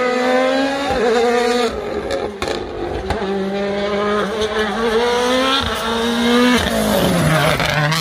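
A World Rally Car's turbocharged 1.6-litre four-cylinder engine at high revs through a tarmac stage, its pitch holding and then stepping up and down, and falling steadily near the end.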